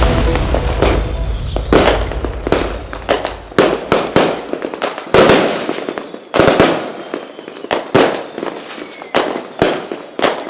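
Fireworks going off: a loud burst at the start, then an irregular string of sharp bangs, about one or two a second, each with a fading crackle.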